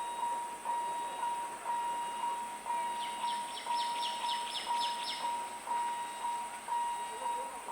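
Railway level-crossing warning alarm beeping a steady high tone about twice a second. A bird chirps a quick run of notes about three seconds in.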